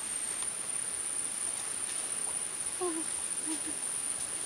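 An insect's steady, high-pitched trill that runs without a break, with a few short, low animal calls about three seconds in.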